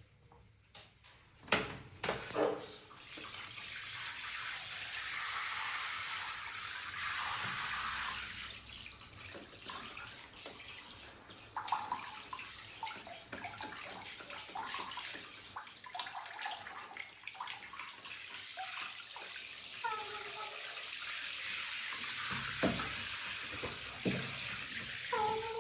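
Tap water running steadily into a basin or tub, with a few knocks in the first couple of seconds.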